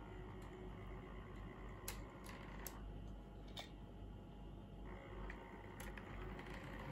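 Small electric motor of an OO gauge model Class 47 locomotive running slowly with a faint steady hum as it uncouples from its tanker wagons, with a handful of sharp clicks scattered through it.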